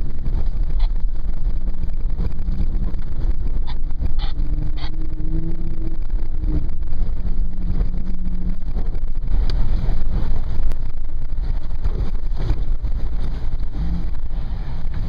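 Toyota FJ Cruiser's 4.0-litre V6 engine running steadily under load off-road, heard from inside the cabin. Its pitch rises slowly from about four to six and a half seconds in, and a few short sharp knocks come around four to five seconds in.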